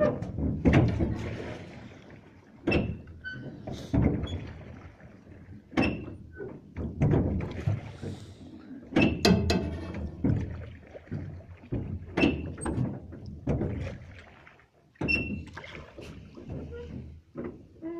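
Irregular knocks and thuds on a boat's deck, a second or two apart, from footsteps in rubber boots and gear being handled, with a low rumble between them.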